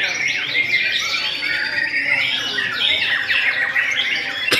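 Several white-rumped shamas singing at once, a dense tangle of overlapping rapid whistles, trills and chatter. A sharp click comes right at the end.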